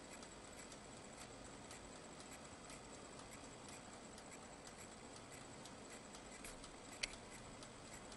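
Countertop rotisserie oven turning its spit, a faint, evenly spaced run of ticks with one slightly louder click about seven seconds in.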